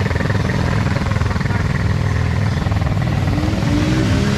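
Motor vehicle engine running steadily close by, a continuous low rumble with rapid firing pulses.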